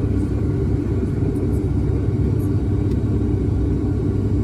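Steady cabin drone of an ATR 72's twin turboprop engines and propellers, a heavy low hum with a few steady tones running through it.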